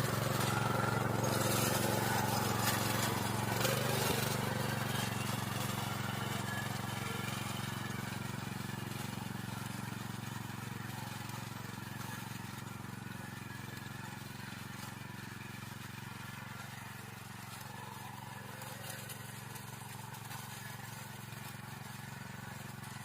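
Small engine of a plough machine (cultivator) running steadily under load, with clattering over the first few seconds, as of tines striking stones in the soil. The engine sound fades gradually as the machine works its way off.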